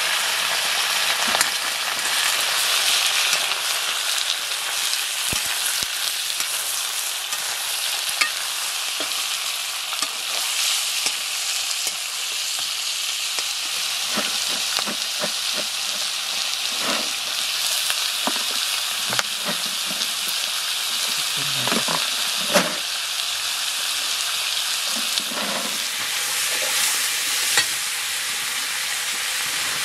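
Pork pieces frying with a steady sizzle in a metal wok over a wood fire, with a metal ladle now and then scraping and knocking against the pan, several sharp knocks coming in the second half.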